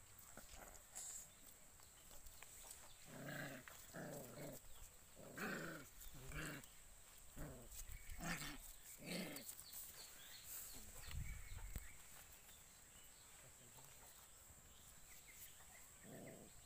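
Puppies play-fighting, giving a run of short growls in quick succession from a few seconds in, with one more near the end.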